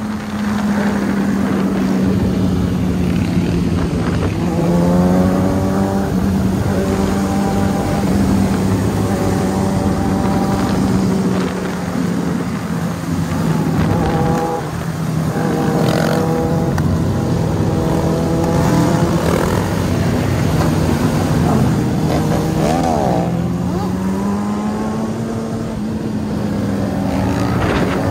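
A pack of motorcycles on a freeway: a steady engine drone from the bike carrying the camera, with the engines of nearby bikes revving up and down over it as riders lift into wheelies.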